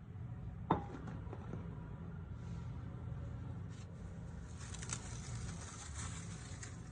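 A single sharp clink or knock under a second in, a few light ticks, then soft scraping and rustling, over a steady low hum.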